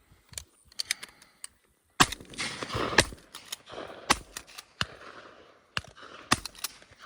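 Shotgun fire during a dove hunt: two loud shots about a second apart near the middle, with more shots and fainter pops scattered through the rest.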